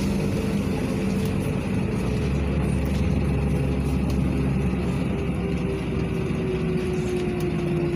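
LiAZ 5292.67 city bus heard from inside the passenger cabin while under way: steady engine and road rumble with a drivetrain whine that slowly falls in pitch.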